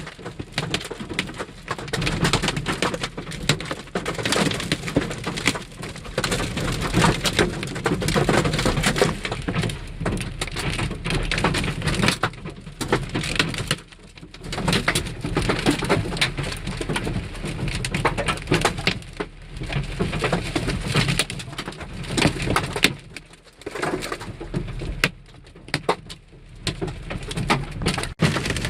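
Large hail, 2 to 2.5 inches across, pelting a vehicle in a dense, unbroken clatter of hard impacts, easing briefly twice.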